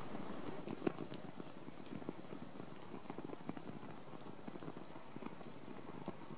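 Stick fire crackling in a small metal wood stove, with many small irregular pops over a soft hiss and one sharper pop about a second in.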